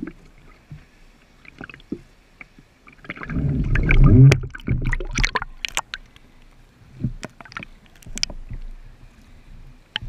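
Lake water lapping and sloshing around a camera held at the surface, with a loud gurgling surge about three seconds in as the water washes over it, then a run of small splashes and drips.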